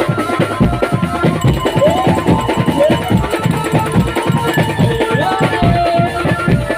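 Drum band music accompanying a can macanan tiger dance: fast, dense drumming with a melody line sliding between notes above it.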